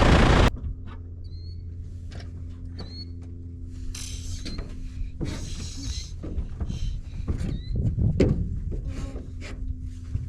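Piper Cherokee's engine and propeller noise while taxiing, which cuts off suddenly about half a second in. After that comes a steady low hum with scattered clicks, knocks and brief high chirps.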